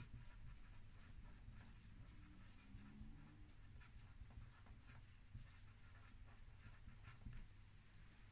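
Felt-tip marker writing on paper: faint scratching from a string of short pen strokes.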